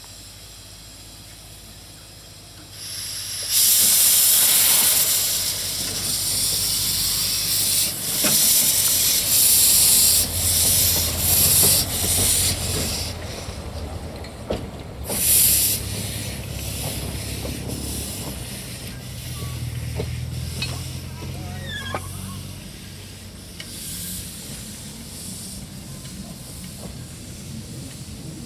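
Wee Georgie Wood, a 1924 narrow-gauge steam locomotive, starting away with steam blowing from its cylinder drain cocks. About three seconds in, a loud hiss of steam begins, with uneven loud gusts for the next dozen seconds. It then settles to a quieter steady hiss and low rumble as the engine moves off.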